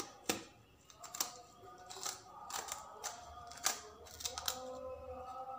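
Kitchen knife cutting around the stem end of a green capsicum (bell pepper): a series of short, crisp cracks and clicks at irregular intervals as the blade snaps through the firm flesh.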